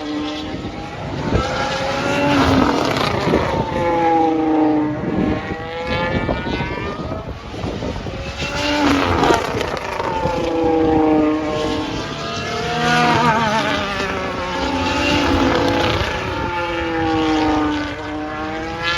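2022 Formula 1 cars' 1.6-litre turbo-hybrid V6 engines passing at speed one after another. The engine note drops in pitch as each car goes by, about six or seven passes in all.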